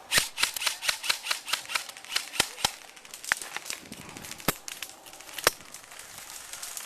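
Airsoft guns firing: a quick string of sharp cracks over the first two seconds or so, then scattered single shots.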